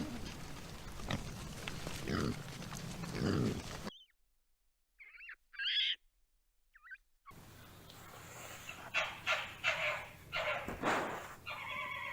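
Animal calls in three edited segments. Low grunting sounds come first. After about four seconds there is a near-silent stretch with a few short high chirps. Louder repeated calls take over from about seven seconds in.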